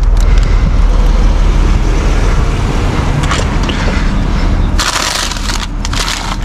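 A vehicle engine idling with a steady low hum, under the crinkling and crunching of plastic packaging being handled; the crinkling is loudest about five seconds in.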